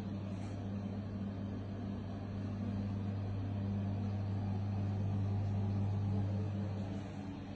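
Bathroom extractor fan running with a steady low hum.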